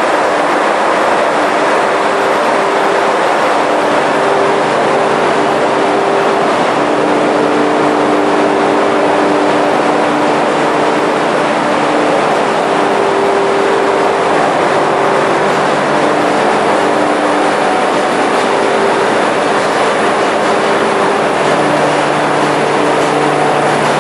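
Loud, steady machinery noise of a container ship's engine room: engines, pumps and fans running together, with a few steady hums that come and go.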